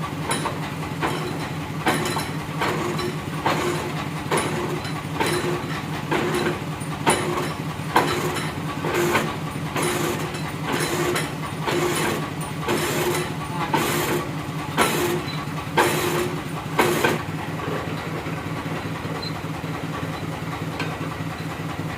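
An engine running steadily, with a series of sharp knocks about once or twice a second that stop about three-quarters of the way through.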